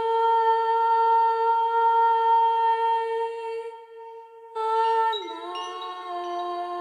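A single voice humming and chanting a mantra in long held notes: one steady note for about three and a half seconds, then after a short break a second note that slides down to a lower pitch and is held.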